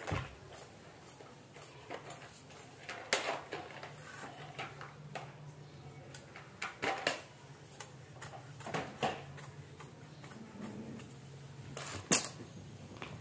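Tailoring scissors cutting through blouse fabric in separate strokes, the steel blades clicking shut with each snip. A louder clack near the end as the scissors are set down on the stone surface.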